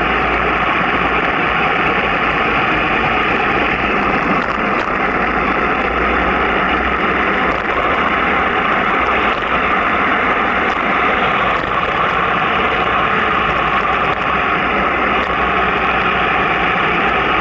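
Steady rushing wind and road noise of travel downhill at about 35 to 45 km/h, with a few faint ticks scattered through it.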